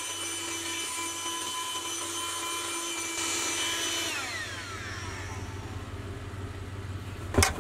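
Vacuum cleaner running with a steady whine as it sucks up dirt around the fuel-pump opening, then switched off about four seconds in, its motor winding down over a couple of seconds. A single sharp knock just before the end.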